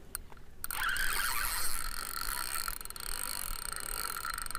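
A spinning reel's drag buzzing as a big hooked fish pulls line off against it. A few single clicks come first, then from about a second in a continuous fast ratcheting buzz.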